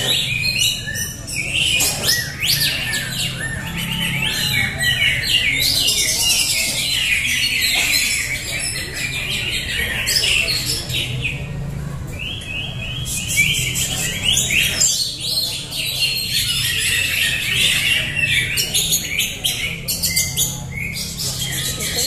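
Many caged greater green leafbirds (cucak hijau) singing at once in competition: dense, overlapping high chirps, whistles and warbled phrases, thinning briefly a little over ten seconds in.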